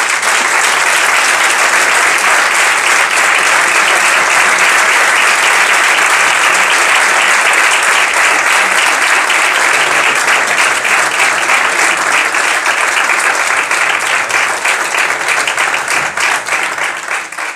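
An audience in a hall applauding steadily after a speech. Near the end the applause thins out into separate claps and dies away.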